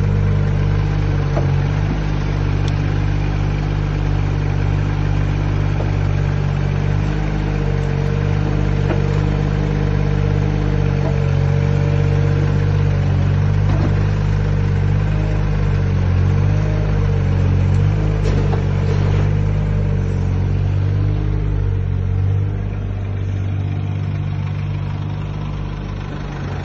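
Komatsu mini excavator's diesel engine running steadily at close range, with a few faint knocks, growing fainter over the last few seconds.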